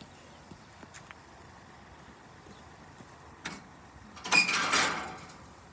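Metal-framed wire-mesh level crossing gate being worked: a single click, then about a second later a loud clattering scrape with a brief squeal as the gate swings, dying away after about a second.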